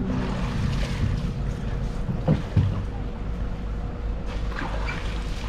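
A boat's engine running with a steady low rumble.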